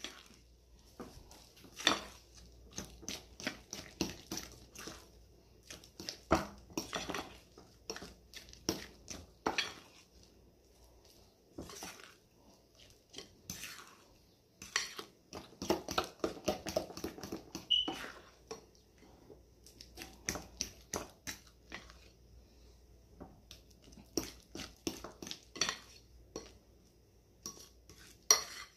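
A spoon knocking and scraping against a glass mixing bowl in quick, irregular strokes as a thick plantain batter is stirred, with a denser stretch of softer, wetter stirring about halfway through.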